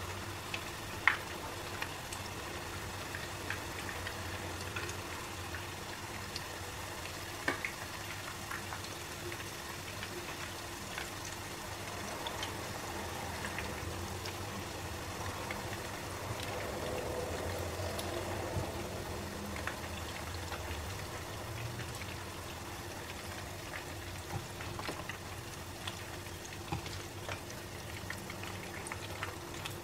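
Flour-and-egg battered chicken pieces shallow-frying in hot oil in a nonstick pan, the oil sizzling and bubbling steadily, with a few short clicks of a spatula against the pan.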